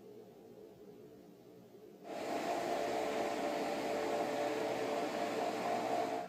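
Motorized roller shades' tubular motor running as the shades roll up: a steady whirring hum that starts suddenly about two seconds in and stops suddenly near the end.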